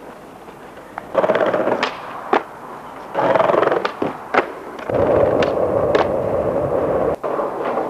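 Skateboard wheels rolling on asphalt in several stretches, broken by sharp cracks of the board's tail popping and the board landing.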